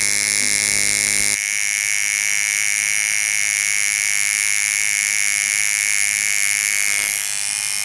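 Electric tattoo machine buzzing steadily with a high, whining tone, running continuously as the needle works the skin; its lower hum drops away about a second and a half in.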